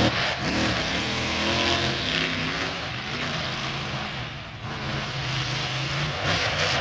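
Monster truck engine revving up about half a second in, then held at steady high revs.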